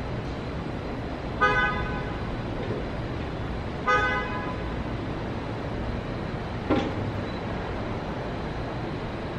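Steady low rumble of city traffic with two short car-horn toots about two and a half seconds apart, and one brief sharp sound later.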